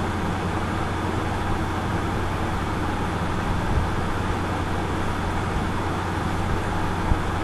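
Steady background room noise: an even hiss over a low, constant hum, with a faint click about seven seconds in.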